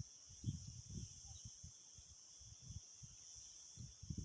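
Steady high-pitched buzz of an insect chorus, with irregular low rumbles on the microphone.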